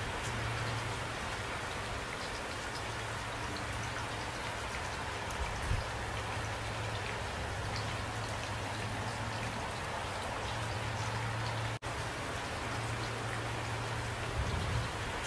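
Steady rain falling, an even hiss with individual drops ticking through it, over a low steady hum. The sound cuts out for a split second about twelve seconds in.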